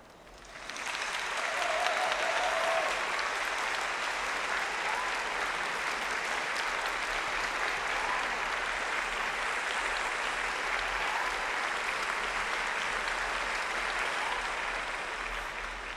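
Applause, swelling about a second in, held steady, then fading near the end.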